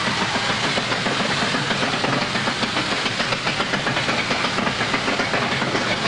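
Mine-train roller coaster running on its steel track: a steady, dense rattle and clatter of the cars and wheels, heard from aboard the train.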